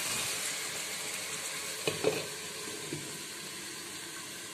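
Boneless chicken pieces sizzling as they fry in oil in a pan. About two seconds in come two knocks as the glass lid goes on, and the sizzle is quieter after that.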